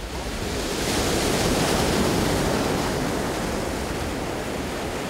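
Sea surf breaking and washing over a rocky shore of black volcanic rock, a steady rush of waves that swells about a second in and slowly eases.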